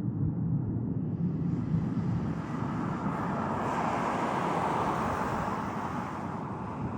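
Jet noise of an Airbus A380's four turbofan engines as it comes in to land: a steady rumble joined about a second in by a rising hiss that is loudest around four to five seconds, then eases.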